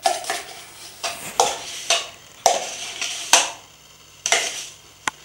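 Metal spoon scraping crème fraîche out of a plastic tub and knocking against the plastic mixing bowl, in a string of short scrapes and taps about every half second, with a sharp click near the end.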